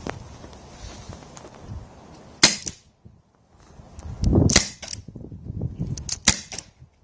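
An ASG Dan Wesson 6-inch CO2 airsoft revolver, loaded with low-power CO2 cartridges, firing three sharp shots about two seconds apart, the first the loudest.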